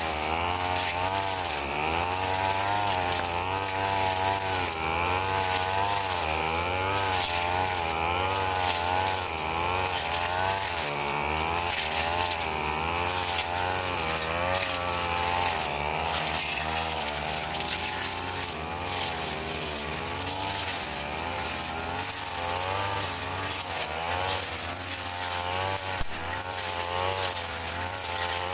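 Brush cutter engine running at high speed while cutting grass, its pitch wavering up and down every second or so as the load changes.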